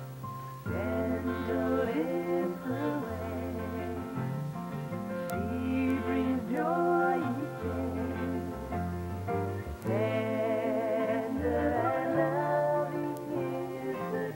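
Background music: a slow melody of long, wavering notes over a steady bass line.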